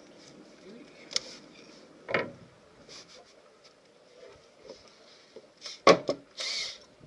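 Scattered knocks and clatters of parts and tools being handled on a fibreglass boat deck during an anchor windlass fit-out, the loudest a sharp knock near the end followed by a short scraping rustle.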